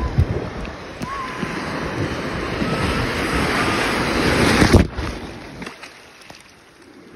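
Sea waves surging and breaking around the legs in shallow surf, with wind buffeting the microphone. The rush of water builds to a wave crashing over about four and a half seconds in, cuts off suddenly, and then gives way to a quieter wash.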